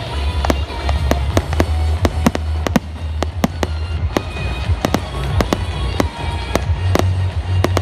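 Fireworks going off: an irregular run of sharp cracks and pops, several a second, over a steady low rumble.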